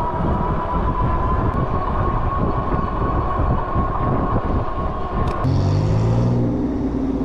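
Wind buffeting the microphone and tyre rumble from a moving e-bike, with a thin steady whine from the brushless hub motor that cuts off about five seconds in. A motor vehicle's engine then runs close by, its pitch dropping near the end.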